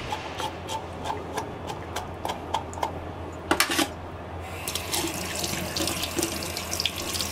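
Water running from a kitchen tap into a stainless steel sink and splashing over a soaked sea cucumber as hands rub it clean of its lime powder. The water comes on about four and a half seconds in. Before that there are light handling clicks and one short knock.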